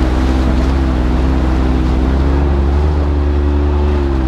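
Can-Am Maverick X3 X RS's turbocharged three-cylinder engine running at steady, moderate revs, pitch drifting slightly up and down, over a hiss of water and wind noise as the machine drives along a flooded trail.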